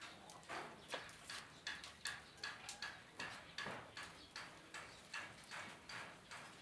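A rope-hung woven bamboo baby cradle being swung, its ropes and hanger creaking in a quick, even rhythm of about three creaks a second.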